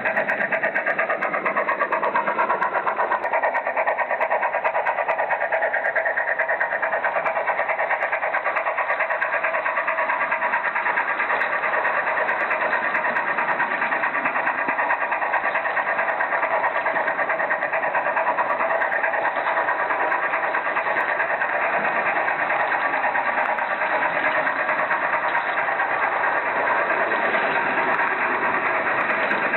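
Märklin model train running steadily on its track, a continuous whir and fast rattle of the small electric motor and the wheels, picked up by a camera riding on the train.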